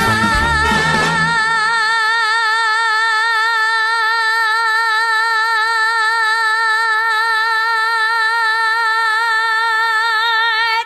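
A woman singing one long, unbroken note with an even vibrato, a show-tune vocal. The band accompaniment drops away after about a second and a half, leaving the voice alone.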